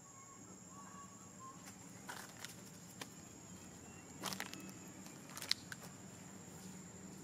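Quiet outdoor ambience: a steady high-pitched hum, with a few faint chirps in the first second and a half and scattered sharp clicks and crackles from about two to five and a half seconds in.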